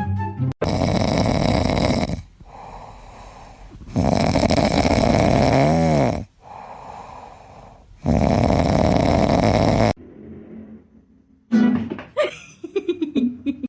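Loud snoring: three long snores about four seconds apart, with quieter breaths between them. The second snore ends in a whistling wheeze. Short pitched sounds follow near the end.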